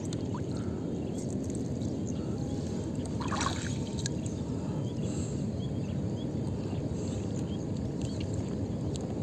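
Water dripping and trickling off a gill net as it is pulled hand over hand out of the lake into a wooden canoe, over a steady low rumble.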